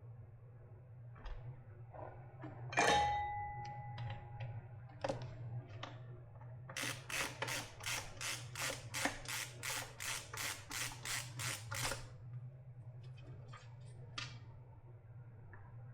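Hand tools clicking and knocking on a battery pack during disassembly. About three seconds in comes one sharp metallic clink that rings briefly, then a run of about sixteen even strokes, roughly three a second, lasting some five seconds. A low steady hum runs underneath.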